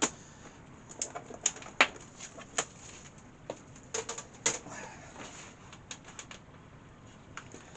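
Irregular clicks and knocks of laptop hardware being handled on a work surface.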